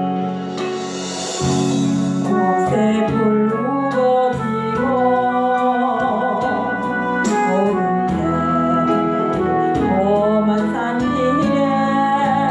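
Christian praise music: sustained keyboard or organ chords under a wavering melodic lead, with a light steady beat and a cymbal wash about a second in.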